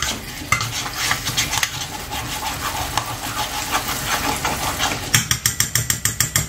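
Chicken pieces and tomato sizzling in a pan while being stirred with a spoon, with scrapes and knocks against the pan. Near the end comes a quick run of strokes, about seven a second.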